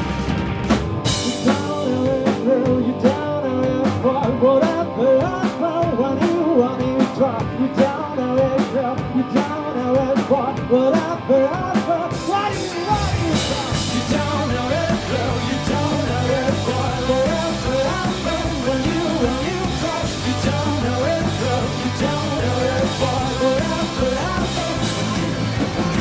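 Rock band playing: a man singing English lyrics over electric guitars and a drum kit. About halfway through the cymbals thicken and the band plays fuller and harder.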